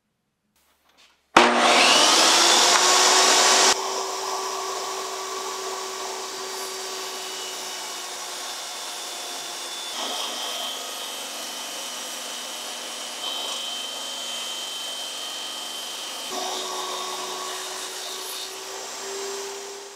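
Table saw starting up with a rising whine, loudest for its first couple of seconds, then running steadily while a wooden block is fed through the blade to cut a slot in its end. The level steps abruptly a few times and fades near the end.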